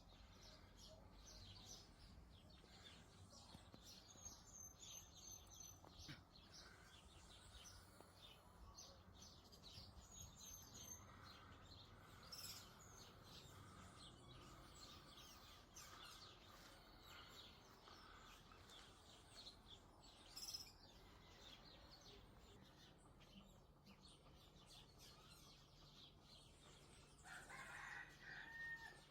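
Faint outdoor ambience of birds chirping, with a louder, longer bird call near the end.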